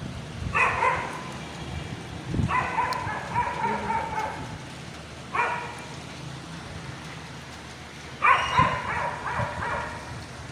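Rain falling steadily, with a pet animal calling four times, each a short, level-pitched cry.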